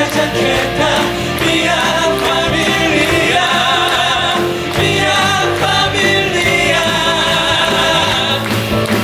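Live band playing a musical-theatre song while several voices sing together in held, sustained lines.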